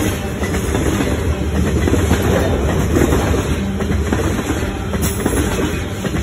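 Freight train of tank cars rolling past close by: a loud, steady rumble of steel wheels on the rails.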